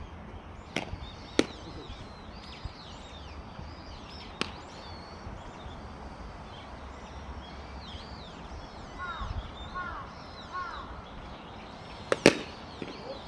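A bat strikes a rubber baseball with a sharp crack near the end, the loudest sound; a few fainter sharp clicks come earlier. Small birds chirp throughout, with wind rumble.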